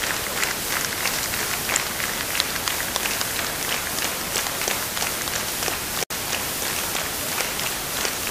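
Audience applauding: dense, steady clapping that cuts out for an instant about six seconds in.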